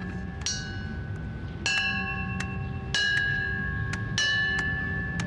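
A bell struck four times at an even pace, about one strike every second and a quarter, each strike ringing on over a low background rumble.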